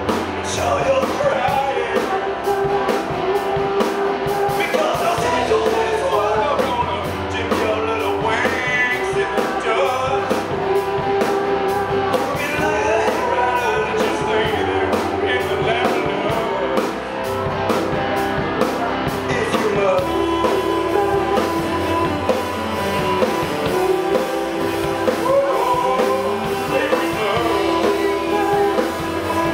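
A small rock band playing a song live, with drum kit, keyboards and a singer, loud and steady throughout.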